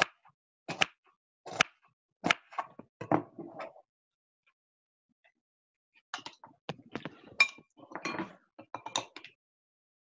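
Knife cutting a strawberry on a plastic cutting board, a string of sharp taps a little under a second apart. After a pause of about two seconds, a metal spoon stirs and clinks against a glass bowl of fruit in almond milk.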